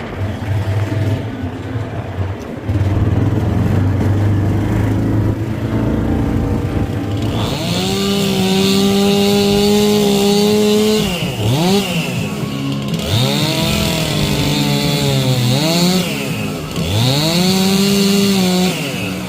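Two-stroke chainsaw run at full throttle in four bursts, its pitch dropping and climbing back between them, after about seven seconds of a low, steady engine hum.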